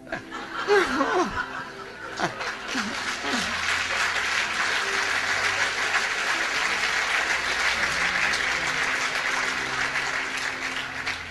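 Lecture audience laughing, then breaking into applause that builds about three seconds in and continues steadily until it eases off near the end.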